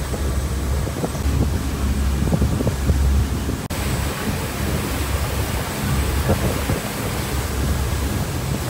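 Wind buffeting the microphone on the deck of a moving passenger ferry, a steady low rumble over the boat's engine and the churning of its wake.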